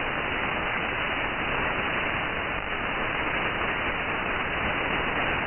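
Steady shortwave static hiss from a receiver tuned in upper sideband, with no programme from the pirate station audible through the noise.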